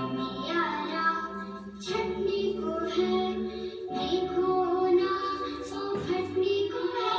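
A song plays: a high singing voice over instrumental backing with steady bass notes.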